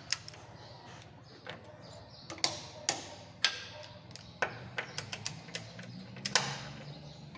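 Sharp metallic clicks and knocks from wrench work as bolts are torqued to the specified value, about a dozen at irregular intervals, some with a short ring, over a low steady workshop hum.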